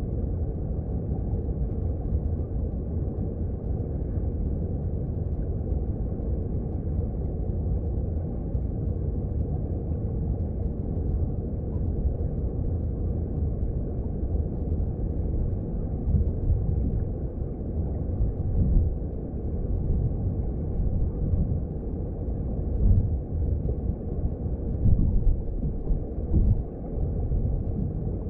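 Mountain stream heard underwater: a steady low rumble of flowing water. A few louder low surges come in the second half.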